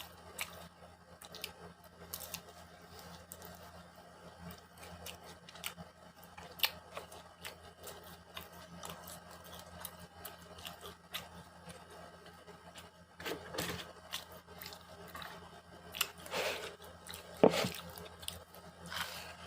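Food being chewed and crunched close to the microphone: scattered soft crunches and mouth clicks, more of them near the end, over a faint steady low hum.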